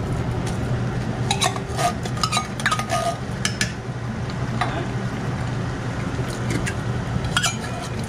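Wooden spoon stirring cooked ground meat and canned soup in a large metal pot, with scattered knocks and clinks against the pot, thickest in the first half. A steady low hum runs underneath.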